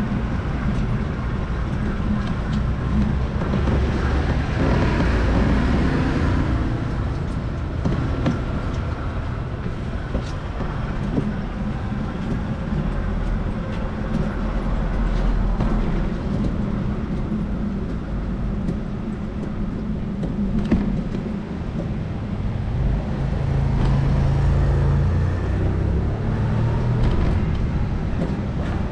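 City street noise of traffic and passing vehicles, with a steady low rumble; an engine hum swells near the end as a heavier vehicle passes.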